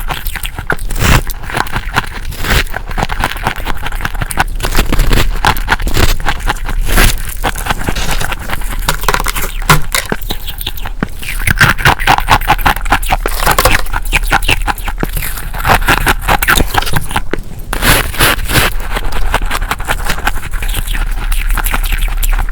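Freezer frost being scraped and crunched close to the microphone: a dense, continuous crackling with many rapid clicks and scrapes.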